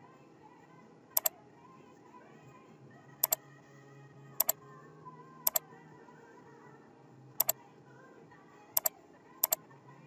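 Computer mouse clicking: a sharp double click seven times at uneven intervals, over quiet background music.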